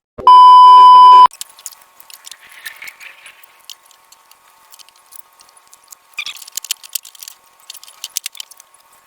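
A loud, steady electronic beep lasting about a second, then faint scattered clicks and light metallic rattles of hand tools and parts while air-horn parts are bolted onto a motorcycle.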